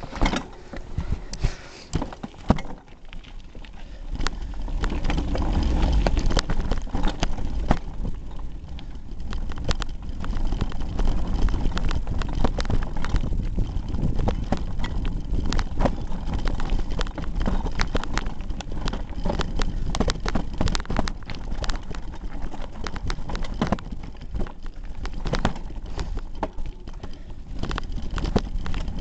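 Hardtail mountain bike clattering down a rocky trail, picked up through a camera taped to the handlebars: a dense, irregular run of knocks and rattles from the bike jolting over rocks, over a steady low rumble of wind and tyre noise.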